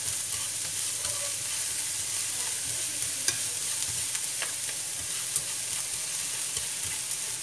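Minced lemongrass and chilli sizzling in a little olive oil in a nonstick frying pan as they are stirred, with a steady hiss and occasional clicks of the utensil against the pan.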